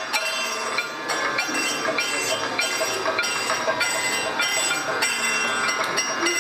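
Kathakali percussion accompaniment: metal hand cymbals and a gong struck in a steady beat, about two strokes a second, with a bright metallic ring between strokes.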